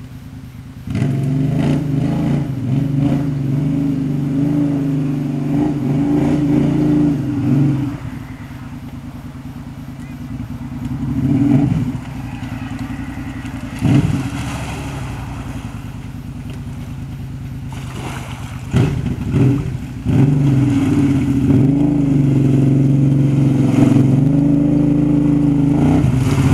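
Kawasaki Brute Force 750's V-twin engine through a Muzzy aftermarket exhaust, revving as the ATV drives through mud. It comes in about a second in, eases off in the middle with a few quick blips of the throttle, then pulls hard and steady near the end.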